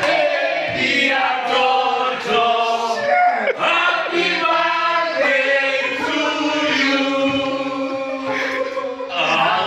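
A group of voices singing together, with long held notes in the second half.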